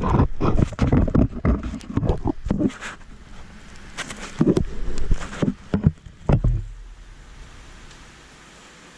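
Irregular knocks, clicks and scrapes of a high-voltage cable and its connector being handled and worked into position, with a dull thud about six seconds in, then the sounds die away.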